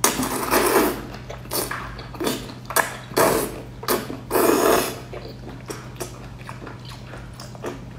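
A person slurping long noodles, with a series of loud, short, noisy slurps and small mouth clicks in between. The slurps come in the first five seconds, and only smaller sounds follow.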